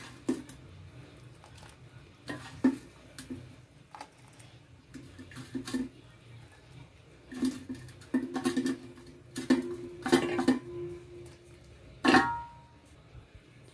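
Scattered clinks and knocks of a steel pot and utensils on the stove, with one louder metallic clink near the end that rings briefly. A low steady tone sounds for a few seconds in the second half.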